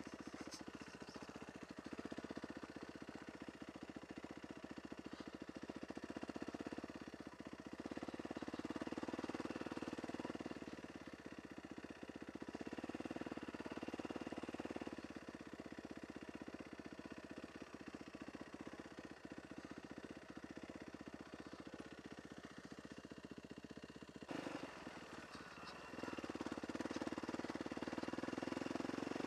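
Yamaha WR450F's single-cylinder four-stroke engine running at low riding speed on a gravel track, the throttle opening and easing every few seconds, getting louder near the end.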